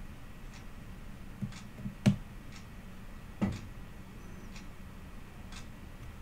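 Scattered small clicks and taps from hand soldering header pins on a circuit board, with two sharper clicks about two and three and a half seconds in, over a faint steady hum.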